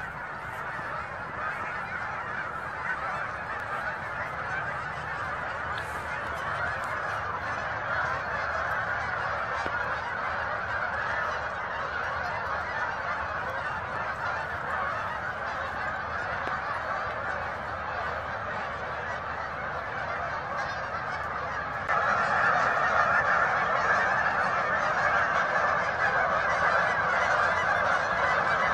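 A large flock of Canada geese honking in a dense, continuous chorus, growing louder about two-thirds of the way through.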